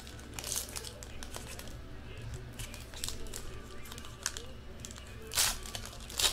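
Foil wrapper of a trading-card pack being torn open and crinkled by hand, in scattered sharp crackles, with a louder rustle about five and a half seconds in.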